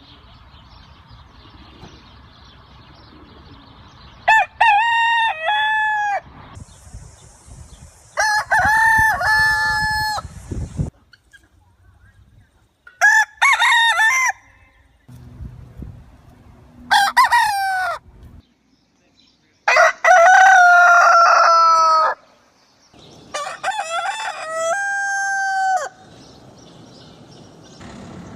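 Roosters crowing cock-a-doodle-doo, about six separate crows one after another, each lasting one to three seconds and differing in pitch and length.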